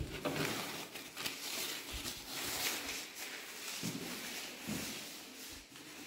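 Paper towels rustling as they are handled and pulled from a wall dispenser, with a few small clicks and several dull low thumps.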